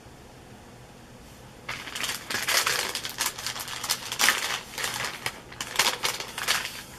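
Plastic bags of soft-plastic fishing lures crinkling and rustling as they are sorted through by hand, with many small sharp crackles, starting about a second and a half in.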